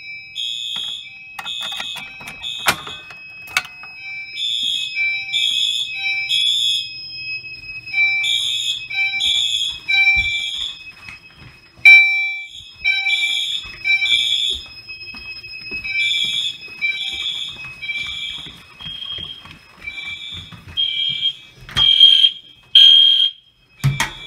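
Fire alarm system in alarm: several horns sounding in groups of three blasts with a pause between groups (the temporal-3 evacuation pattern), over a steady high electronic tone, loud throughout.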